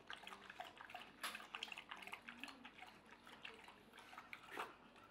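Dog lapping water from a bowl: faint, quick wet clicks and splashes, with a louder splash about a second in and another near the end.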